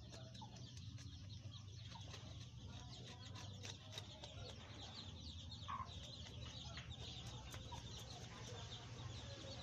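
Faint chickens clucking now and then, over light scraping and rubbing of a tilapia being scaled and cleaned by hand and knife.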